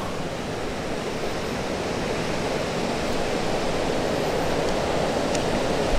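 Shallow coastal stream rushing over stones, with ocean surf breaking behind it: a steady rush of water.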